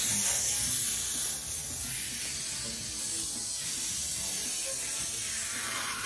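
Helium gas hissing from a disposable helium tank's nozzle into a foil shark balloon as it fills, the hiss slowly fading.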